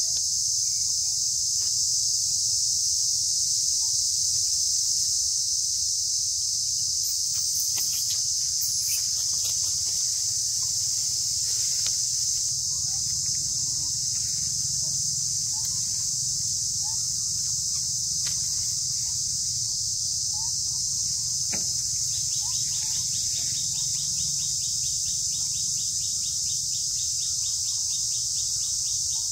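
Steady, high-pitched drone of insects in the forest, with faint, scattered bird chirps and a few brief clicks; a fast insect ticking joins in near the end.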